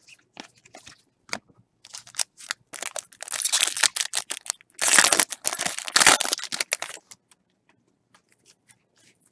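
Foil wrapper of a Topps Chrome baseball card pack crinkling and tearing as it is opened, after a few light clicks of cards being handled. The crinkling is loudest in the middle and stops about seven seconds in.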